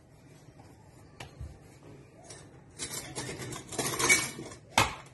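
Faint sounds of a wooden rolling pin working dough on a stone rolling board, then, about three seconds in, a spell of kitchen utensils clattering and clinking, with a single sharp knock near the end.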